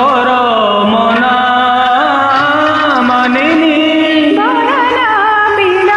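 A man singing a melody with gliding pitch into a microphone over a karaoke backing track.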